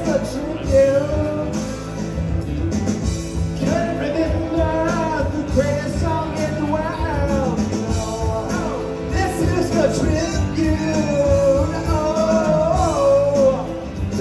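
Rock karaoke backing track with a man singing along into a microphone in long, wavering held notes, with no clear words.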